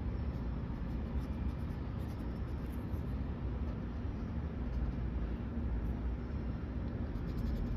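A steady low rumble of background noise, with faint short scratches of a fine pen stroking across sketchbook paper, clustered about two seconds in and again near the end.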